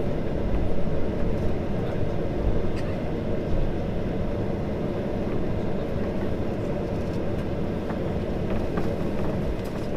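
Cabin noise of a Boeing 737-800 taxiing, its CFM56-7B turbofan engines running at idle: a steady hum and rush with a few faint ticks.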